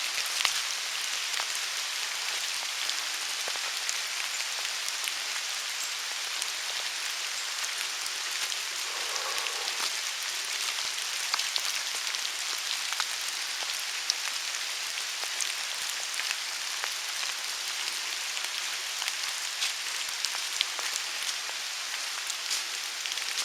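Steady rain falling, with many small drops ticking close to the microphone.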